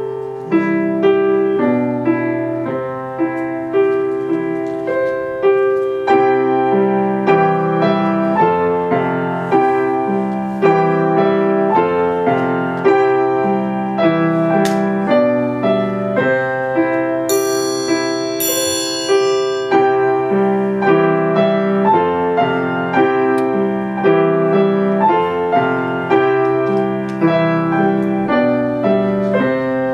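Bohemia grand piano playing a Christmas carol: a simple repeated melody over a rocking bass figure at a steady pace. About seventeen seconds in there is a brief stretch of very high ringing notes.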